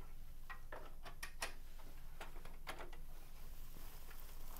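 Faint, irregular light clicks and ticks of hands handling a cable and parts inside an open desktop computer case, over a faint low hum.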